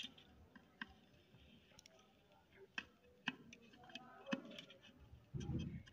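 Faint, sparse clicks and light taps as a soldering iron tip and wire are worked on the solder pads of an LED chip board, with a soft low thump near the end.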